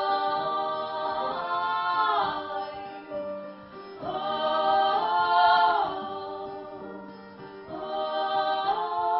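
Live acoustic performance: several voices hold long wordless sung notes in close harmony, swelling and sliding to new notes every two seconds or so, over a steady acoustic accompaniment.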